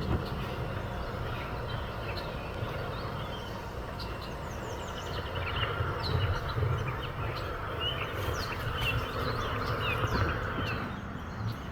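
Small birds chirping, many short quick calls from about four seconds in, over a steady low rumble.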